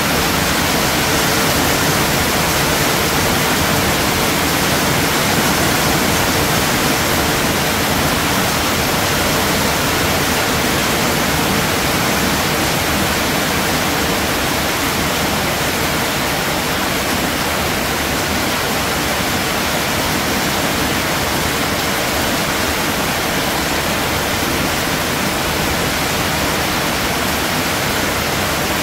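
Steady rain falling, a dense even hiss that holds the same level throughout.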